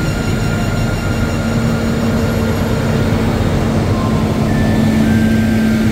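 Diesel engines of large farm tractors driving past close by in a slow procession, a steady low rumble and drone that grows louder as a tractor passes near the end.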